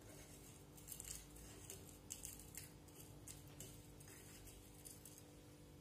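Faint, scattered light clicks and rustles of roasted seeds being picked by hand from a plate, over a low steady room hum.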